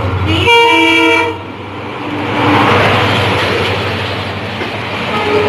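WDP4D diesel-electric locomotive giving one short horn blast of under a second. Then the locomotive and its passenger coaches pass close by with a loud, steady rush of wheels on rail.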